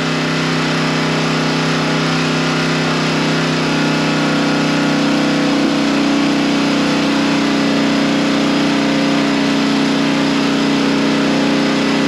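Motor-driven pump running steadily at constant speed, pumping diluted sand and water out of the hole around a hut's pile.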